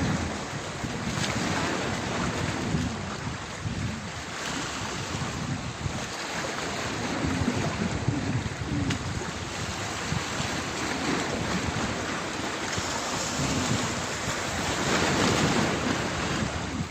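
Wind buffeting the microphone outdoors: a steady rushing hiss with low rumbling gusts that rise and fall.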